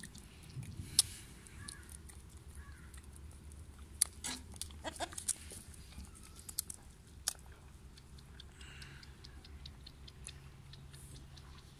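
Two newborn goat kids suckling at their mother's udder: irregular wet smacking and sucking clicks, with a few sharper clicks in the first half and quicker small ticks later on.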